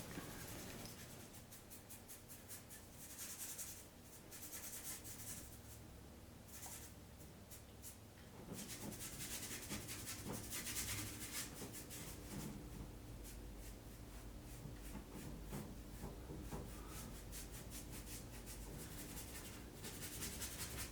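Faint scratching and rubbing strokes on a surface, coming in clusters of quick back-and-forth strokes.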